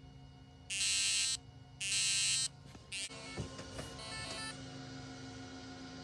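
Buzzer of a homemade micro:bit fire alarm sounding two harsh blasts, each well under a second. After them come fainter stepped electronic beeps from a second linked micro:bit alarm answering the first, all over a steady fan hum.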